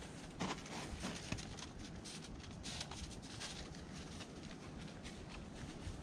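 Faint crunching of boots shifting in crusted snow, a few scattered crunches, more of them about two to three seconds in, over a low steady rumble.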